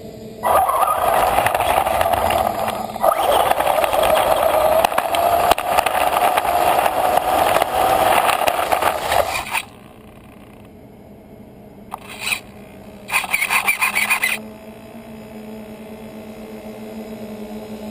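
A toy RC car's small electric motor whining as its wheels scrape through dry leaves. It runs for about nine seconds, stops, then comes back in two short bursts.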